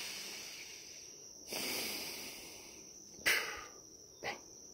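A man's breaths close to the microphone: a long breath, another about a second and a half in, then a sharper, louder breath about three seconds in and a short mouth sound near the end. Behind them, a steady high chirring of insects such as crickets.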